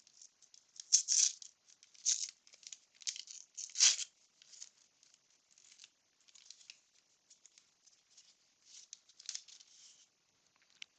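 A baseball card pack being torn open with a series of crinkling rips, the loudest about four seconds in, followed by fainter rustles as the cards are handled.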